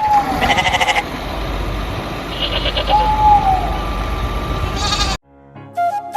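A goat or sheep-like farm animal bleating twice, each call holding a pitch and then falling, with a steady low rumble underneath. Near the end the sound cuts off and flute music begins.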